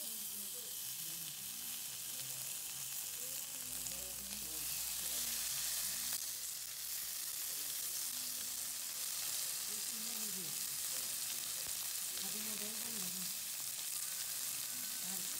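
Meat sizzling steadily as it fries in a hot sukiyaki pan.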